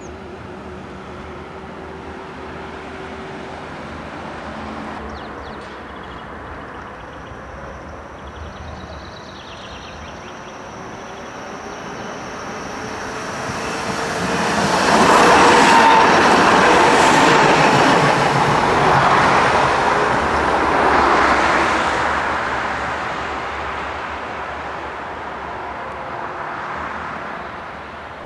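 Low-floor electric tram passing close by on its track: its running noise and wheels on the rails build up over several seconds, are loudest a little past the middle, then fade as it moves away.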